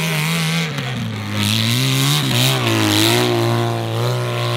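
Dirt bike engine revving hard under load up a steep dirt slope; its pitch drops sharply just under a second in, then rises and falls with the throttle.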